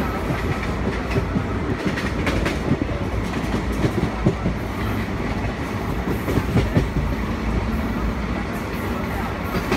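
Steady low rumbling noise with many irregular clicks and knocks, a mechanical travelling sound like a moving vehicle.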